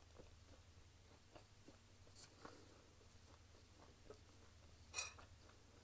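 Near silence under a low steady hum, with faint scattered clicks of eating and of fingers handling sticky sauced chicken. A brief sharp tap about five seconds in is the loudest sound.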